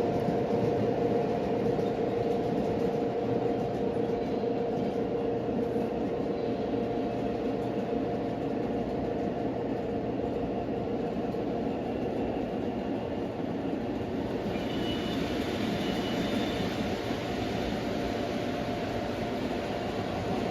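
Model train running on the layout track: a steady electric motor hum over wheel and track rumble. A faint high squeal comes in about three quarters of the way through.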